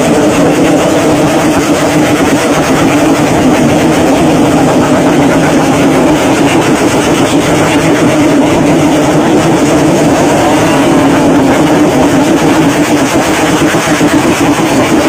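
Many Yamaha RX-King two-stroke motorcycles revving at once, their exhausts merging into one loud, steady mass of engine noise.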